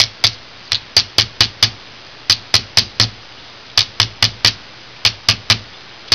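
Chasing hammer tapping a domed metal disc on a jeweler's anvil. The strikes are sharp and quick, coming in runs of three to five at about four a second with short pauses between, texturing the dome to a rough, hand-hammered finish.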